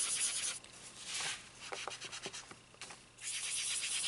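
Cotton pad rubbing dry pastel back and forth on a sheet of paper: short bursts of hissing strokes with pauses between, turning into a steadier run of quick strokes near the end.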